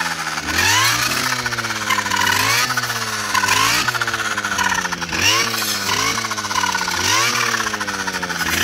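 Petrol brush cutter engine revved up and let fall back again and again, every second or two, as it clears sapling growth.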